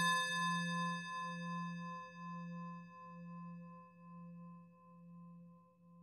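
A singing bowl ringing out from a single strike, a low hum with several higher overtones, the hum wobbling at about two beats a second as the whole sound slowly fades.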